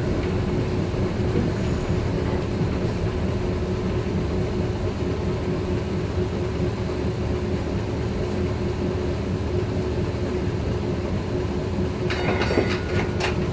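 Memphis MATA tram #540 heard from on board while running: a steady low rumble of the car rolling along its track with a constant hum. Near the end there is a brief burst of metallic clicks and ringing.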